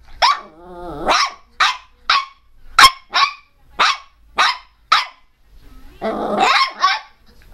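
Miniature pinscher barking fiercely in a rapid string of about ten short, sharp barks roughly half a second apart. A wavering growl follows the first bark, and a longer, rougher growling bark comes near the end.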